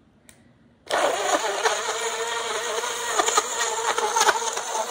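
Tongjing six-blade, battery-powered portable blender switching on about a second in, after a faint click, and then running steadily with a high motor whine as it blends banana, blueberries and water.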